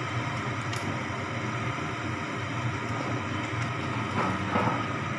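Steady roar of a gas stove burner on full flame under a pan of boiling curry gravy, with a short louder sound about four seconds in as fried chicken meatballs are slid into the gravy.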